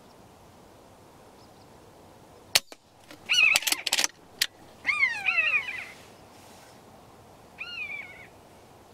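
Common buzzard mewing: three drawn-out calls about two seconds apart, the second sliding clearly down in pitch. A sharp click comes a couple of seconds in, and a few more clicks come around the first call.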